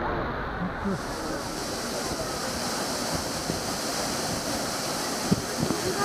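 Steady rushing of Minoo Falls, a waterfall dropping onto rocks, with the murmur of a crowd of visitors. About a second in, the rush turns hissier.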